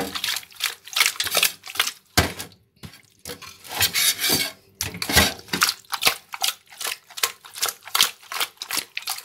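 Raw chicken pieces being rubbed with salt and turned by hand in a stainless steel bowl: irregular rubbing and scraping with clinks of the metal bowl. A sharper knock comes about two seconds in.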